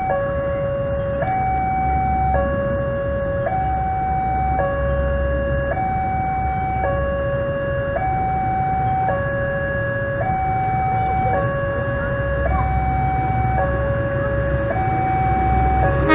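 Railway level-crossing warning alarm sounding a steady two-tone electronic signal, switching between a lower and a higher tone about once a second: the crossing is closed for an approaching train.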